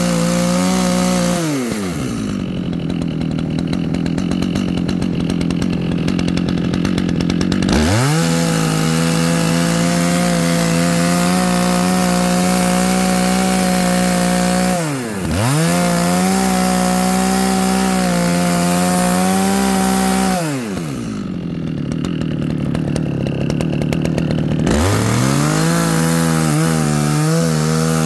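Dolmar two-stroke chainsaw running with a dull chain, mostly at high revs; its pitch falls away twice for several seconds, once more briefly about fifteen seconds in, and climbs back each time. The chain is so dull that it barely cuts the wood.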